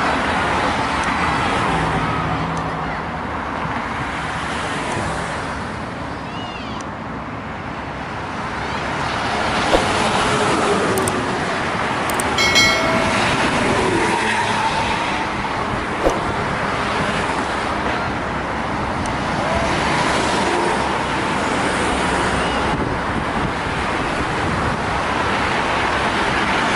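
Steady roadway traffic noise as vehicles pass, swelling and fading. About twelve seconds in there is a short single-pitched horn toot.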